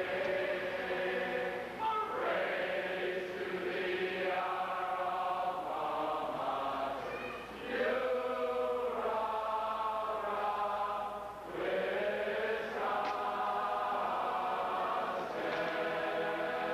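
A large marching band singing together slowly in long held phrases, with short breaks between phrases.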